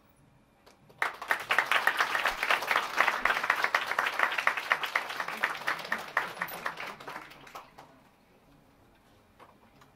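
A small audience applauding: the clapping starts suddenly about a second in and dies away about six seconds later.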